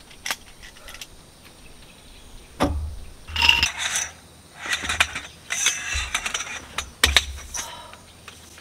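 Metal frame poles of a folding camp cot clinking, rattling and scraping as they are handled and slotted together, in several short bursts with sharp clicks between.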